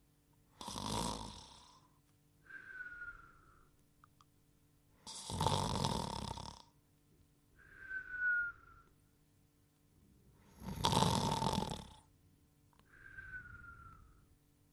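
Cartoon sleeper's snoring in a repeating cycle: three loud snores about five seconds apart, each followed by a short whistle on the out-breath that falls slightly in pitch.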